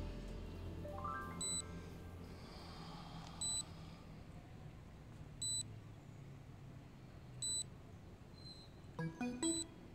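Soft background music with a short high electronic beep that repeats evenly every two seconds, five times.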